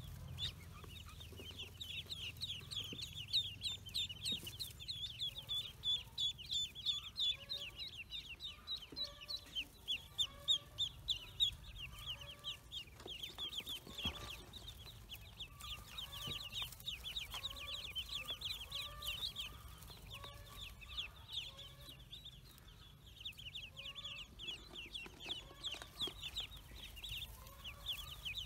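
A crowd of newly hatched ducklings peeping nonstop, with many high, quick, falling chirps overlapping. From about a third of the way in, a slower series of short, lower calls repeats roughly once a second, from the adult bird brooding them.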